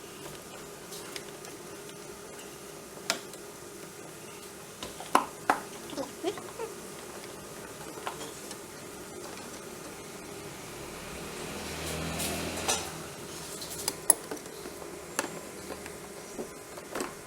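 Scattered clicks and clanks of a water pump plier on a hose clamp and of the plastic air filter box being worked loose under the hood, over a steady hum.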